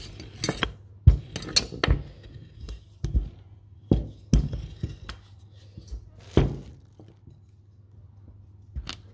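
Irregular knocks and thunks of baking utensils on a table: a wooden rolling pin and metal cookie cutters being handled, picked up and set down over rolled-out cookie dough. The knocks come thickest in the first half and thin out, with one more near the end.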